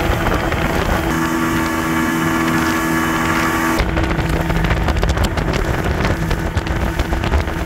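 Susanna 500 motorboat under way on a river: its engine runs at a steady pitch over the rush of wind and water. About four seconds in the steady tone drops out, leaving a rough low rumble of wind on the microphone and water.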